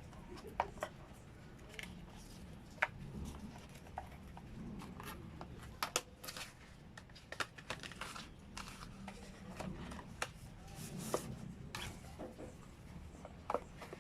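Faint, irregular clicks, taps and light rustling of small objects being handled, over a low steady room hum.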